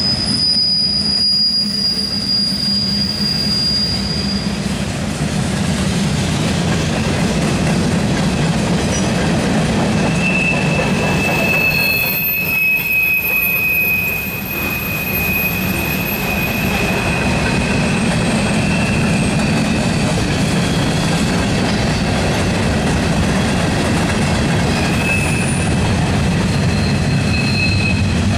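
Freight cars of a mixed manifest train rolling past, a steady rumble of wheels on the rails. A thin, high wheel squeal rings over it at the start and fades within a few seconds, and a lower squeal starts about ten seconds in and holds on.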